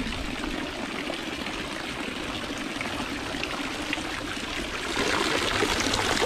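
Running water, a steady rushing and trickling noise that grows louder about five seconds in.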